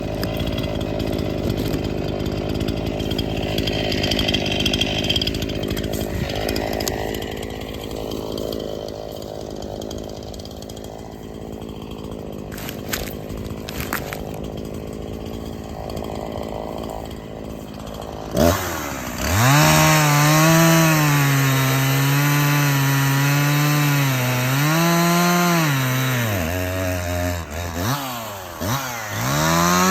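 Chainsaw cutting downed pine. For most of the first part the sound is duller and noisier. About 18 seconds in, a two-stroke engine starts running loud and close, its pitch dipping and recovering several times as the chain bogs in the cut.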